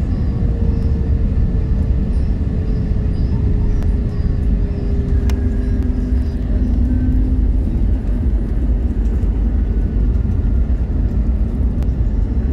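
Cabin noise of an Airbus A320neo landing: a steady rumble of airflow and engines with a hum that slowly falls in pitch, then a sharp thump about five seconds in as the main wheels touch down, followed by the rumble of the wheels rolling on the runway.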